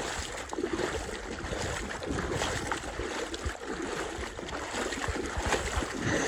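Shallow lake water sloshing and splashing around the legs of someone wading through it, with wind buffeting the microphone.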